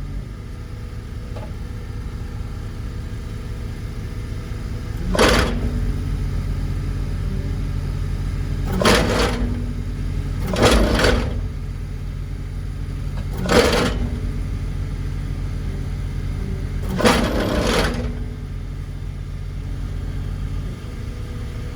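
Heavy construction equipment's diesel engine running steadily, with five short, loud bursts of machine noise spaced a few seconds apart while the dock pilings are worked level.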